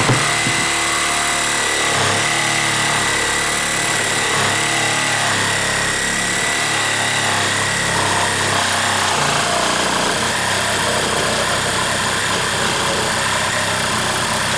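DeWalt 12V Xtreme cordless reciprocating hacksaw running steadily under load as its blade cuts through an upright 2x4, a constant buzzing with a high whine.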